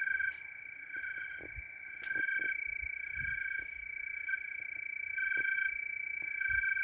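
Night chorus of small calling animals: a steady high trill runs throughout while a second, lower call pulses about once a second. A few faint low thumps come through underneath.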